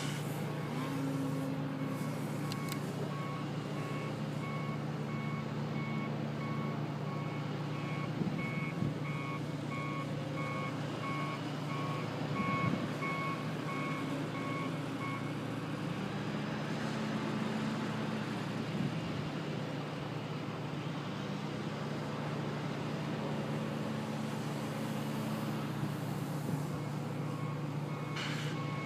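An electric RC aerobatic plane's motor and Xoar 13x7 propeller buzz, coming and going in pitch and loudness as the plane flies about, over a steady low engine hum. A reversing alarm beeps steadily for the first half and starts again near the end.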